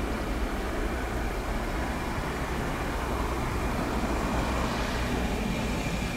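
Airbus A320's jet engines at takeoff thrust during the takeoff roll, heard from a distance as a steady rumble.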